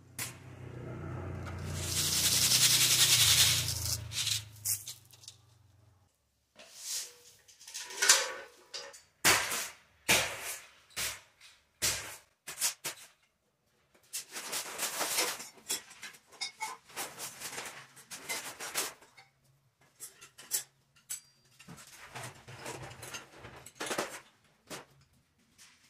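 At first a loud rushing noise over a low hum, which cuts off suddenly; then a long run of irregular scrapes and knocks from a hoe blade dragging through a pile of sand and cement on a concrete floor, mixing mortar.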